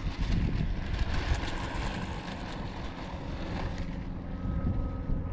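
Rushing whoosh of an RC jet's 90mm electric ducted fan as the model rolls out on the runway after landing, loudest early and easing a little through the rollout.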